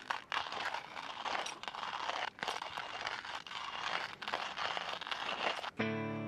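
Stainless-steel hand coffee grinder being cranked, its burrs crunching through whole coffee beans in a continuous gritty grind with small irregular clicks. The grinding stops suddenly near the end as music with sustained notes comes in.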